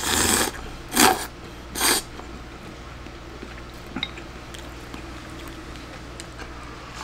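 A man slurping glass noodles and broth from a bowl of taipien soup: three noisy slurps in the first two seconds, then a light tap about four seconds in.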